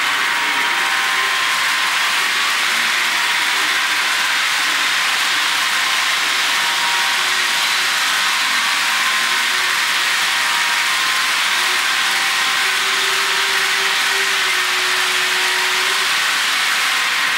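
Bachmann HO scale DDA40X model locomotive running a long freight train around sectional track: a steady whirring and rolling noise from the motor and wheels on the rails.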